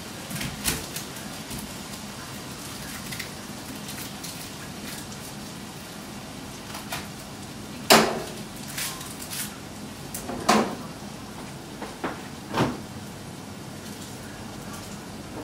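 Kitchen clatter: scattered knocks and clicks of dishes, utensils and cupboards being handled at a counter, the loudest about eight seconds in, over a steady low hiss.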